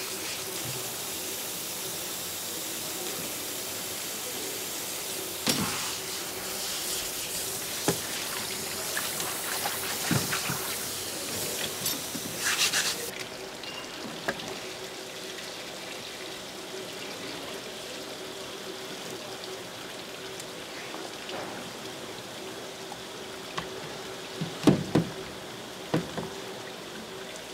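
Water running steadily with scattered knocks and clatter; the running water cuts off suddenly about halfway through. A few sharp knocks follow, the loudest a short cluster near the end.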